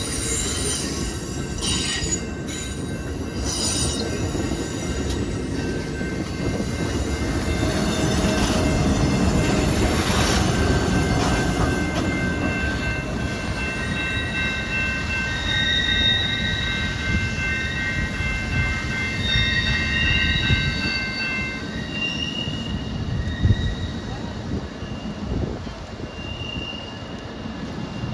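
Amtrak Hiawatha passenger train rolling by with its wheels squealing on the rails: several thin, high, wavering tones that come and go over a steady low running noise.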